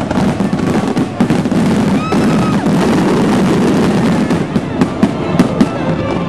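Aerial fireworks going off in a dense barrage: continuous crackling and popping with many overlapping bursts, and sharper individual bangs in the last couple of seconds.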